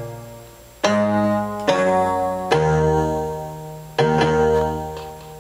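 Electronic keyboard played in chords: four chords struck in turn, each left to ring and die away, the last fading out near the end.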